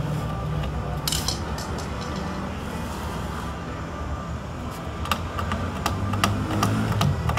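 Sharp clicks and knocks of the plastic rear casing of a CRT television being handled and worked loose to open it: one pair about a second in, then a cluster of several near the end. A steady low hum runs underneath.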